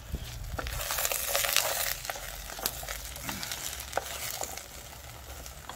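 Shallot, sugar snap peas and mushrooms sizzling in a little oil in a camping saucepan over a Swedish log torch fire, stirred with a wooden spoon. The sizzle is loudest for about a second near the start, then settles, with scattered sharp clicks.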